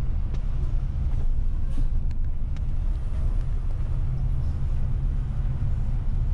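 Steady low rumble of a long-distance coach's engine and tyres, heard inside the cabin while it drives along, with a few faint ticks in the first few seconds.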